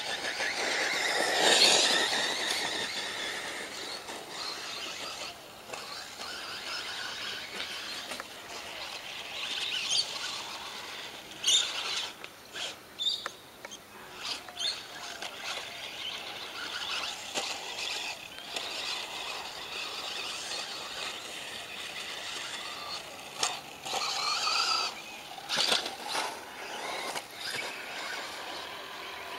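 Radio-controlled car's motor and drivetrain whining as it drives, the pitch rising and falling with the throttle and loudest about two seconds in, with scattered clicks and knocks.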